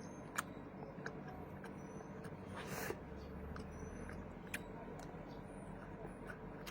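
Faint eating sounds: a few small, scattered clicks and a brief rustle about two and a half seconds in.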